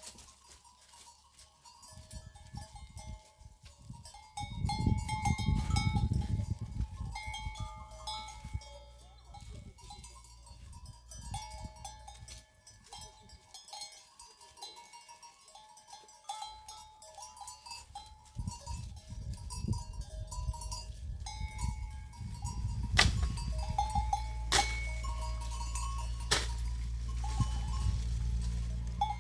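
Bells on a flock of goats and sheep clinking and ringing irregularly as the animals move. A low rumble comes in at times, with a few sharp knocks near the end.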